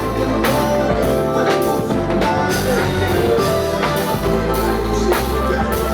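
Live band music: a drum kit keeping a steady beat over a deep bass guitar line, with keyboards.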